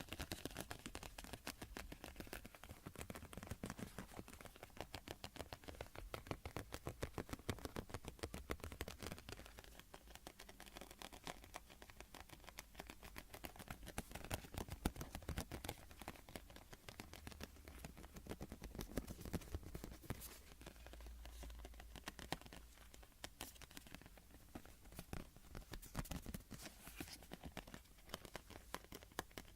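Rapid, close-miked scratching, with many fine strokes a second and scattered louder taps, made for ASMR.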